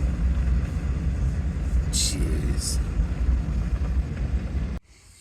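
Tractor engine running steadily under way, a deep even rumble, which cuts off abruptly near the end.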